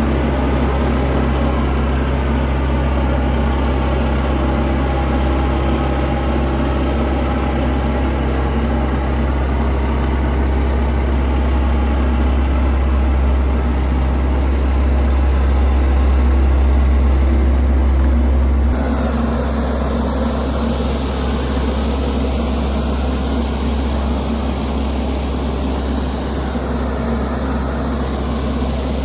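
Fortschritt E514 combine harvester running steadily at work, a loud engine drone with a strong low hum and machinery noise over it. About two-thirds of the way through the sound changes abruptly and drops slightly in level, then carries on steady.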